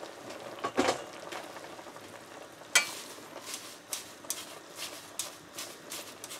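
Fresh stinging nettle leaves rustling as they are pressed down by hand into a saucepan of simmering stock and potatoes, over a steady faint sizzle from the pot. A sharp click comes a little under three seconds in.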